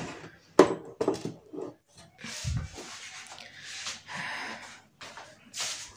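Small folding tables with black metal leg frames and laminated tops being stacked on one another: a few sharp knocks and clatters in the first two seconds, a dull thump about two and a half seconds in, then scraping and rubbing as the tabletops slide over each other.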